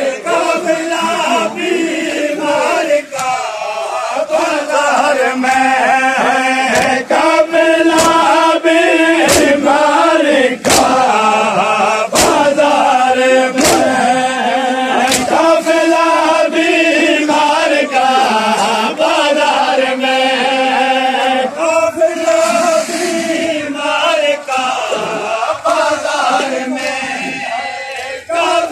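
A crowd of men chanting a noha, a Shia mourning lament, in unison. Through the middle part, sharp slaps land together about every second and a half, in time with the chant: hands striking bare chests in matam.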